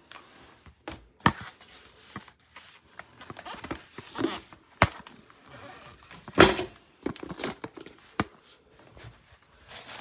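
Scattered plastic clicks and knocks from the cordless vacuum's detached dust bin being handled, with a few sharp snaps; the vacuum's motor is not running.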